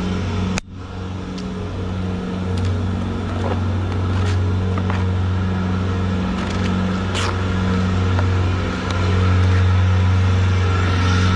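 Engine of a farm machine running steadily as it scrapes manure out of a barn alley, getting louder near the end.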